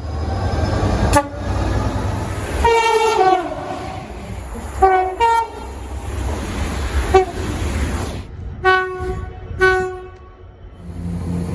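A UK train's two-tone horn sounds a string of about seven short blasts over the low rumble of the moving train. One longer blast, about two and a half seconds in, falls in pitch. Near the end a fresh, steady horn note begins.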